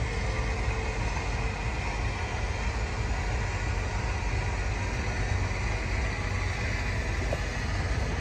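Power convertible top of a 1952 Ford Crestline Sunliner being raised: a steady mechanical hum with a low rumble and a faint whine.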